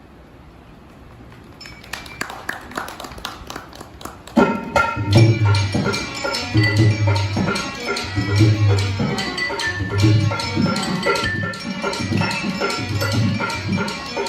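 Traditional Rajasthani folk music starting up: a few scattered taps, then about four seconds in, drums and melodic instruments come in together with a steady, repeating deep drum beat.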